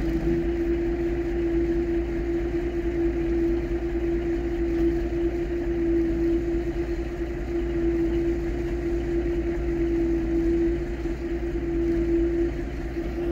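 The 1978 Autocar dump truck's 400 Cummins diesel running at a steady idle, with a constant hum over its low rumble, while the pup trailer's dump box is lowered.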